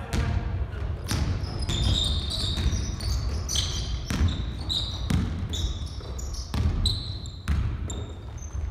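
Basketballs bouncing on a wooden gym floor, with repeated thuds and the short high squeaks of sneakers on the court.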